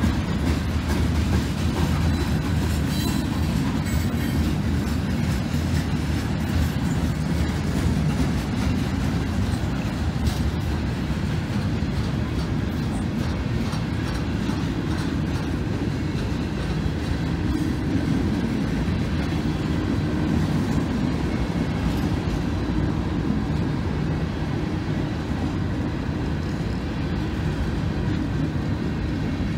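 Freight cars of a long freight train rolling steadily through a grade crossing: a continuous low rumble with wheels clicking over the rail joints, the clicks thicker in the first part.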